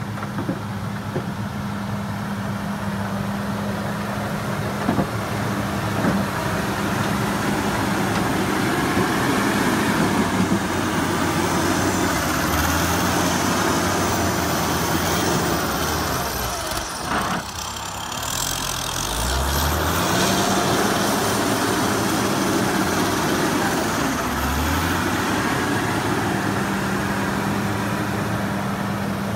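John Deere 670CH motor grader's diesel engine running steadily under load as the machine passes close, with a rough scraping and grinding of the blade cutting through soil and rock. The sound grows louder as the machine passes, dips briefly about halfway, and the engine note shifts low a couple of times after that.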